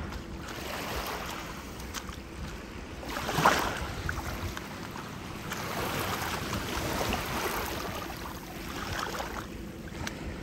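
Small waves lapping and washing at the water's edge of a calm beach, with wind on the microphone; one wash swells briefly about three and a half seconds in.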